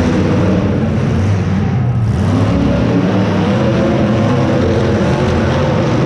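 Demolition derby car engines running at full throttle: a loud, steady engine drone whose pitch rises and falls as the cars rev.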